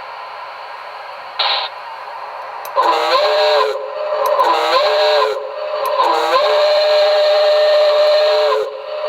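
Recorded small steam locomotive sounds from a QSI Maxx Traxx model-train sound unit played through a speaker: a steady steam hiss with a short burst about a second and a half in, then the steam whistle blowing three times, each blast swooping up in pitch as it opens and the last one long.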